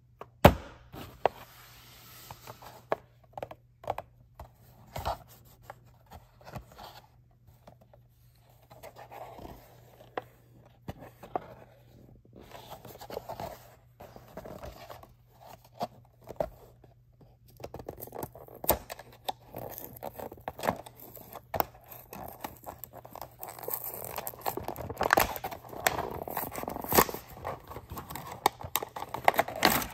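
Clear plastic blister being pried and peeled off a Hot Wheels cardboard blister card by hand: crackling plastic, scraping and tearing card, with scattered clicks. A sharp click about half a second in is the loudest sound, and the crackling and tearing get busier and louder in the second half.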